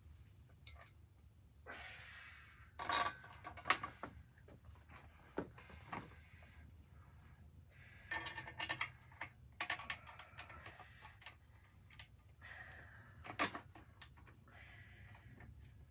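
Intermittent clinks, knocks and short clatters of metal engine parts and tools being handled on a garage workbench, over a steady low hum.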